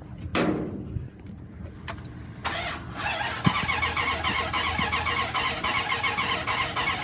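Starter motor cranking a 2002 Dodge Ram 3500's 5.9-litre V8 gas engine in a steady fast rhythm from about three seconds in. The engine never catches, even on starting fluid, which the owner takes for no spark. A short sharp noise comes before it, about a third of a second in.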